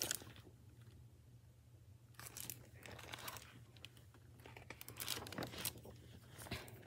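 Faint crinkling and rustling of a hardcover picture book's plastic library jacket as it is handled and turned over, in a few short bursts.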